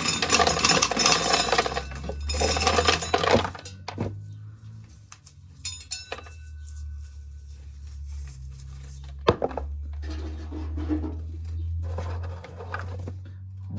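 Dry corn kernels being shelled off the cob and rattling and clinking into a container, loudest in the first few seconds and again in shorter patches later, with one sharp click about nine seconds in. A steady low hum runs underneath.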